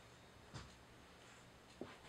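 Near silence: room tone, with two faint clicks, one about half a second in and one near the end.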